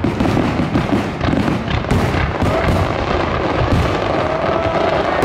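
Aerial firework shells bursting one after another in quick succession, their booms overlapping into a continuous barrage.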